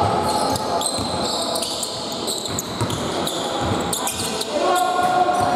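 Basketball game sounds in a large sports hall: a basketball bouncing on the wooden court and sneakers squeaking, with players' voices calling out, louder near the end, all echoing in the hall.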